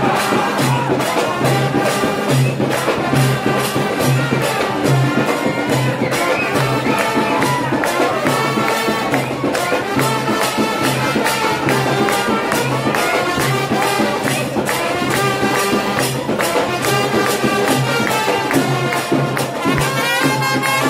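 Sri Lankan fans' papare brass band playing a lively tune, with brass melody over a steady drum beat and percussion, amid a cheering stadium crowd.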